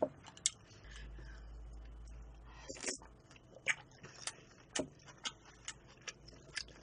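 Eating sounds: small sharp clicks and taps, about two a second, from a spoon in a small glass cup of broth and from sipping and chewing. A faint low rumble runs from about one to three seconds in.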